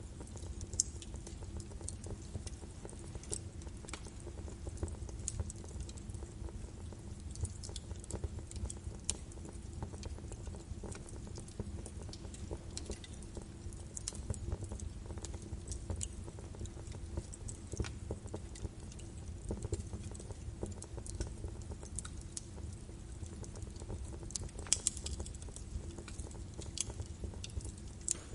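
Birch-wood fire burning in a fireplace: a steady low rumble of flames with frequent irregular crackles and pops, a few sharper pops about a second in and near the end.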